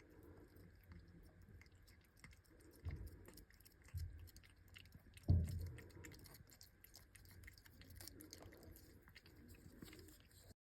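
A kitten chewing and eating: many small crisp clicks, with a few soft low thumps, the loudest about five seconds in.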